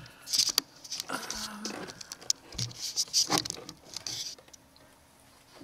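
Camera handling noise: fingers and clothing rubbing and tapping close to the microphone in irregular rustles and clicks as the camera is moved and set in place, dying down near the end.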